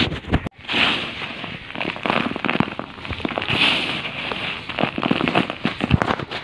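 Dry sand-cement-clay balls crumbling under a hand's fingers: a dense crackle of grit and lumps crunching and breaking, with a brief break about half a second in.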